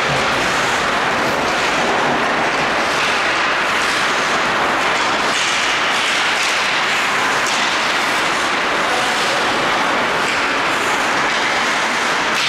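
Steady hiss of skates scraping the ice during an ice hockey game, with a few faint clicks from sticks and puck.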